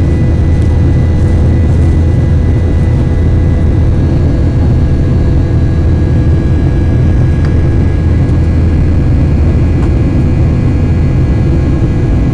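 Jet airliner cabin noise from a Boeing in flight: a loud, steady low rumble of engines and airflow, with a few faint steady whining tones above it.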